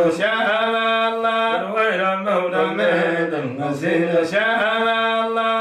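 Unaccompanied male chanting of an Islamic qasida, with long held notes that slide between pitches.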